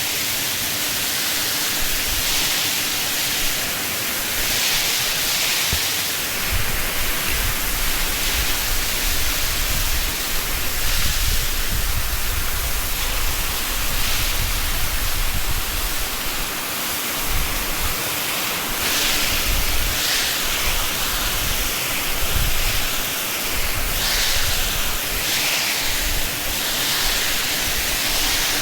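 Powerful jet of water from a dairy shed wash-down hose spraying, a steady rushing hiss that swells and eases as the jet moves.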